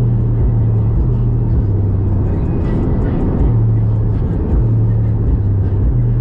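Road noise inside a moving car, a steady low rumble, with music on the car stereo whose deep bass notes pulse through in a regular pattern.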